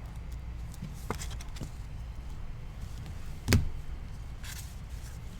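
Trading cards being handled over a steady low hum: a few faint clicks, one sharper tap about three and a half seconds in, and a brief soft rustle.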